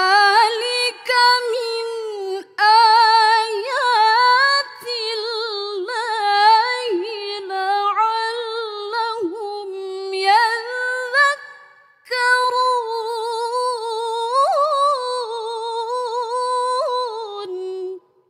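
A young woman's solo unaccompanied voice reciting the Quran in the melodic tilawah style, holding long high notes with wavering, ornamented turns. One long phrase runs until a short breath about twelve seconds in, then a second phrase follows and ends just before the close.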